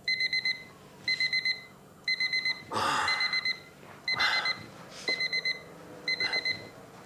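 Digital alarm clock beeping in groups of four quick high beeps, about one group a second. A few rustles of bedding come in between as a sleeper stirs under a blanket.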